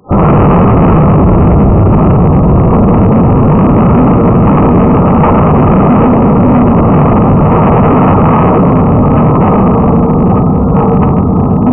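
A loud, steady rumbling noise that starts abruptly and carries on unchanged, with no distinct shots or impacts.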